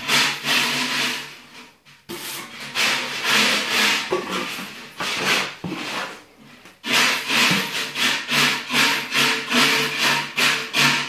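Steel plastering trowel scraping wet plaster mix across a hawk and the wall in repeated strokes. The strokes come irregularly with two short pauses at first, then settle into an even rhythm of about two a second for the last four seconds.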